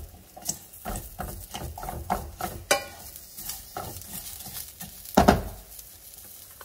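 Wooden spoon stirring long-grain rice and sliced onion toasting in a stainless steel skillet: irregular scrapes and rustles of dry grains against the pan, over a light sizzle. One louder knock a little after five seconds in.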